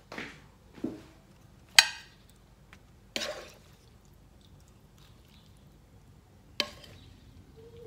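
A spatula scraping and knocking against a nonstick wok as stir-fried broccoli and shrimp are tipped out onto a plate. About five sharp knocks and scrapes, the loudest about two seconds in.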